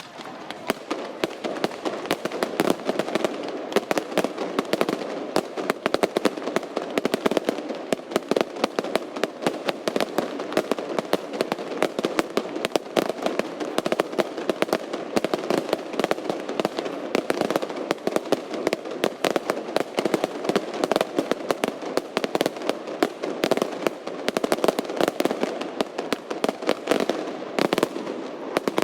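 Fireworks display going off in a dense, continuous barrage of rapid crackles and bangs, with no let-up.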